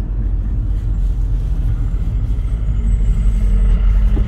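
Driving noise from the cabin of a 2015 Mercedes E550 with its twin-turbo V8 under way: a steady low rumble of engine and road, getting slightly louder. A steady hum joins about two seconds in.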